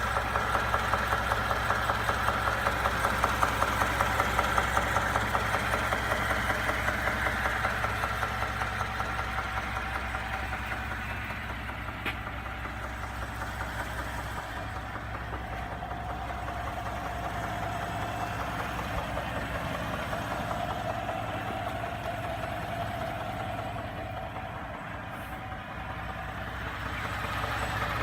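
2017 Ford F-150's EcoBoost twin-turbo V6 idling with a rhythmic engine knock, louder over the first several seconds and then softer. The uploader calls it a very distinct knock, one that comes on within minutes of a cold start.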